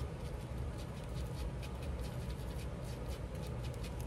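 Light, irregular tapping and rubbing on paper, several taps a second, as the paper's edges are darkened with ink, over a steady low hum.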